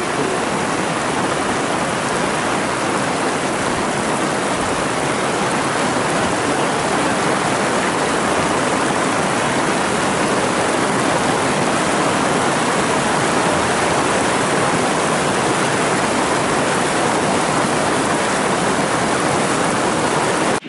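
Heavy rain falling on the sea surface: a loud, steady, even hiss with no break.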